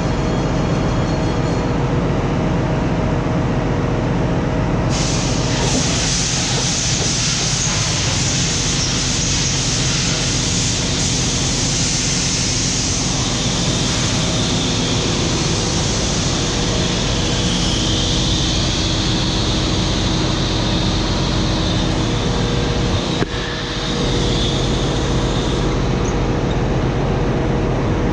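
Loud, steady machinery noise and a strong hiss of compressed air as the Mitsui B&W 6S60MC-C two-stroke crosshead main engine is turned over on starting air with its indicator cocks open, blowing the cylinders through to check for water, oil or fuel before starting. The hiss grows stronger about five seconds in, with a brief drop about five seconds before the end.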